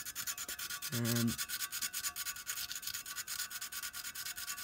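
Coarse sandpaper rubbed by hand in rapid back-and-forth strokes over the painted metal body of an old clockwork model locomotive, stripping the old paint off.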